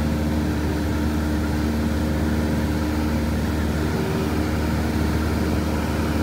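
Cessna 172 Skyhawk's four-cylinder piston engine and propeller droning steadily in flight, heard from inside the cabin.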